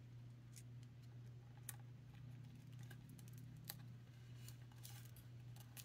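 Near silence: a steady low hum with faint, scattered ticks and taps of card stock being handled and pressed down onto a card.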